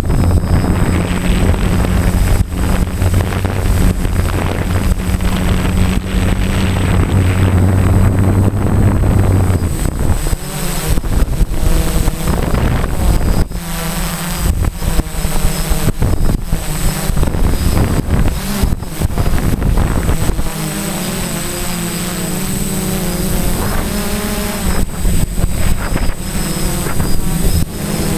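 Quadcopter's electric motors and propellers running, heard close from the onboard camera, with gusts of wind buffeting the microphone. The motor hum holds a steady pitch for about the first ten seconds, then wavers up and down as the drone comes down from its hover.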